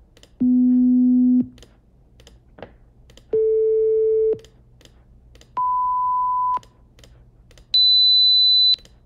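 Four pure test tones played one after another at the same volume setting, each held for about a second and rising in pitch: 250 Hz, 440 Hz, 1,000 Hz and 4,000 Hz. About a second of quiet with faint clicks separates each tone from the next.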